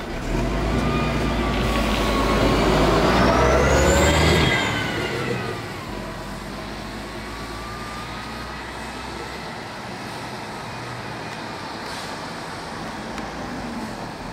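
City bus engine rumbling loudly as the bus pulls away, with a whine that rises and then falls in pitch over the first five seconds or so. After that comes steadier, quieter road traffic noise.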